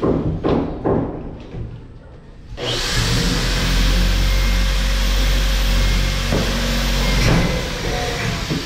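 A few sharp knocks in the first second and a half. Then, from about two and a half seconds in, a motor-driven machine starts and runs steadily and loudly to the end, with a couple more knocks over it.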